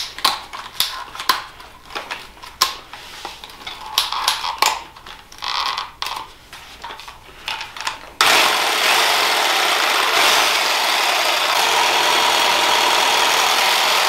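Clicks and knocks as an aerosol can of sealer is fitted into a clamp-on holder. About eight seconds in, a corded reciprocating saw starts and runs steadily, shaking the can in its can-shaker attachment.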